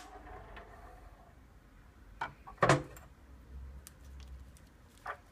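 Metal lathe accessories handled and set down on a table: two knocks about two seconds in, the second louder, and a light tap near the end.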